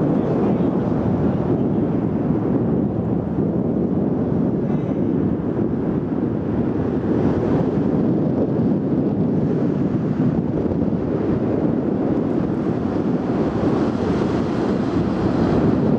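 Wind blowing on the microphone: a steady rushing rumble with no breaks or distinct events.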